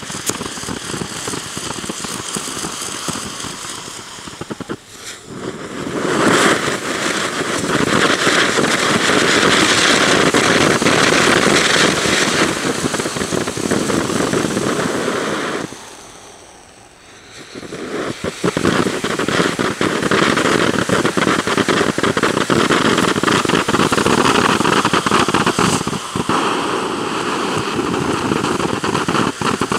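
Large firework fountain (Jumping Jelly Beans) burning, a dense hiss of spark spray full of fine crackles. It eases briefly about 5 s in, and again more deeply about halfway through, then picks up again.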